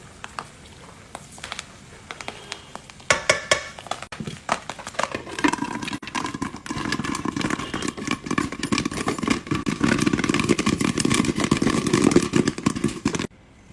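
Popcorn kernels popping: a few scattered pops at first, then from about three seconds in a fast, dense flurry of pops that grows louder and busier, stopping suddenly near the end.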